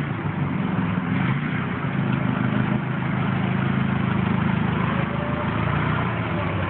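Hyster 35 LP forklift's propane-fuelled engine running steadily as the forklift drives past.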